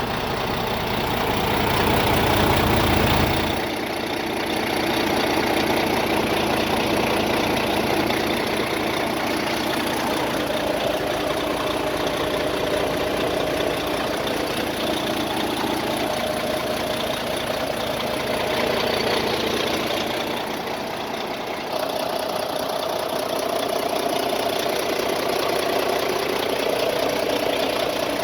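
Diesel engine of a Volvo VNL semi truck idling steadily. A heavier low rumble in the first few seconds drops away suddenly.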